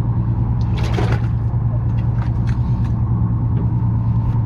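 Steady low drone of the fishing boat's engine running, with scattered clicks and rustling from hands working close to the microphone.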